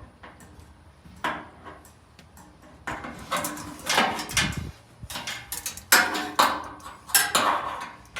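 Light metal clinking and clattering in a few separate bursts as a fuel-gauge sending unit is handled and turned on the opening of a Ford F100's new gas tank.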